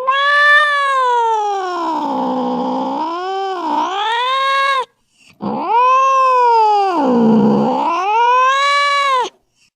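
Angry cat caterwauling: two long, loud yowls, the first ending about halfway through and the second starting half a second later, each sliding down in pitch and wavering back up.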